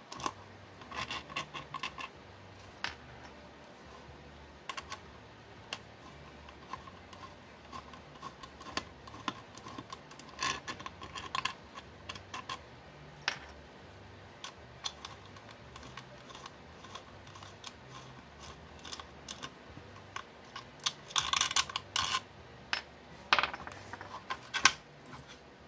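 Small screwdriver backing long screws out of a black 3D-printed plastic project box: scattered light clicks and ticks, with the loose metal screws set down on the table. A denser patch of plastic clatter comes near the end as the box is handled and pulled apart.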